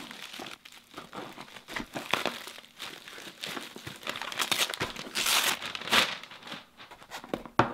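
A USPS Priority Mail envelope being handled and pulled open, crinkling and rustling in irregular bursts, loudest about five to six seconds in.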